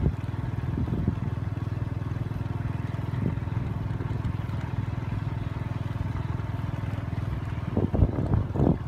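Small motorbike engine running steadily while riding along, its low hum unbroken. A few loud low thumps come near the end.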